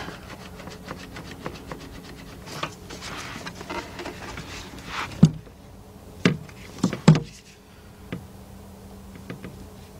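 Gloved hands rubbing and rustling against the plastic fuel pump module, its wiring and a tie strap down in the tank opening, then a few sharp clicks about five to seven seconds in as the wire snips and strap are handled.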